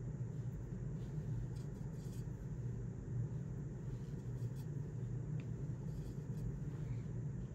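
Steady low background hum, with a few faint light ticks.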